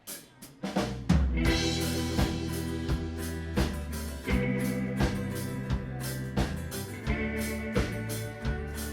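Live country band starting a song's instrumental intro: after a near-quiet moment with a few clicks, drums, bass and guitar come in together about a second in and play on at a steady beat.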